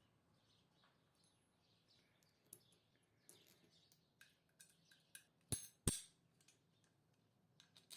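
Small metal clicks and clinks as the hardware of a battery cable clip is handled, scattered through the second half, with two sharp louder clicks close together near the middle.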